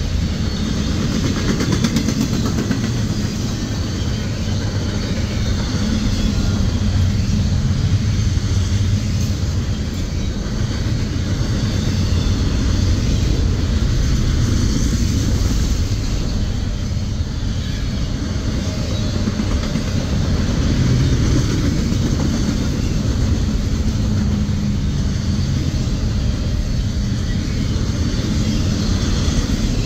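Double-stack intermodal freight train of well cars loaded with containers rolling past, the wheels running steadily on the rails.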